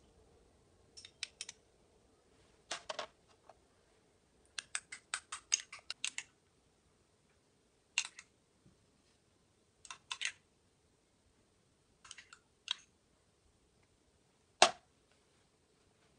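Small metal spoon clinking and scraping against a ceramic ramekin and dish as mayonnaise and Dijon mustard are mixed and spread: scattered light clicks, a quick run of about a dozen taps around five seconds in, and one sharper clink near the end.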